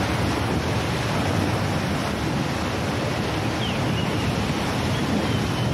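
Choppy sea water washing and splashing, with steady wind buffeting the microphone.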